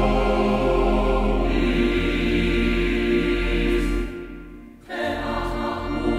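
Background choral music: a choir holding long sustained chords, which fade out briefly about four seconds in and swell back a second later.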